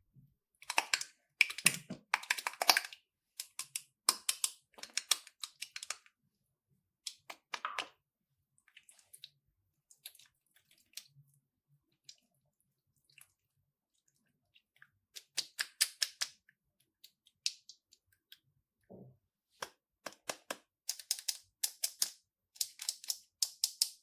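Slime being handled: bursts of fast crackling, popping clicks, with quiet pauses between the bursts and a longer pause midway.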